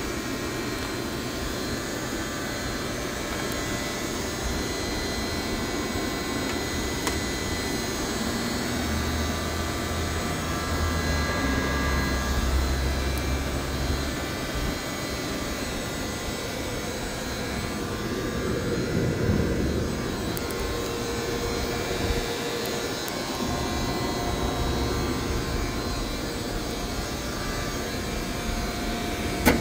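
Capstone microturbine running, a steady jet-like rush with faint high tones, and a deeper rumble that swells for several seconds near the middle.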